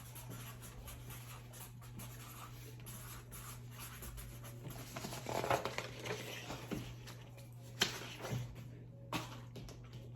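Small-room quiet with a steady low hum, under faint scattered rustling and small clicks of handling food and paper; a busier patch of rustling about five seconds in and one sharp click near the end.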